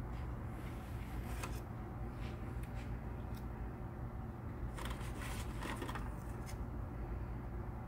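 Paper and foil wrappings of a straight-catheter kit crinkling and rustling under gloved hands, in a few short bursts, most of them about five to six seconds in, over a steady low hum.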